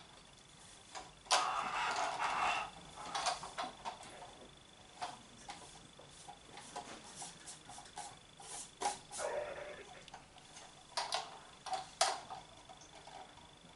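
Handling noises from a plastic G-scale model box car: scattered clicks and knocks, with rustling about a second in and again about nine seconds in.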